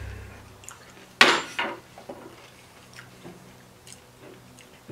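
A kitchen knife set down with a sharp clatter about a second in, then a few light taps and clicks against the glass pickle jar as a pickle is fished out.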